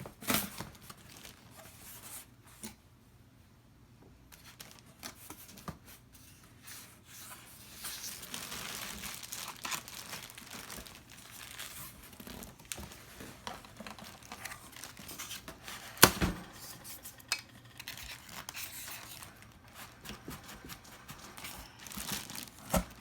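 Cardboard box packaging being torn open and handled: tearing, rustling and crinkling with scattered knocks, the loudest a sharp knock about sixteen seconds in.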